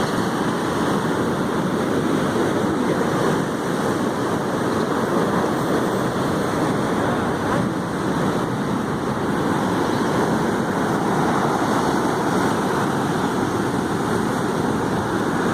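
Sea surf washing over the shore rocks in a steady continuous rush, with no separate crash standing out.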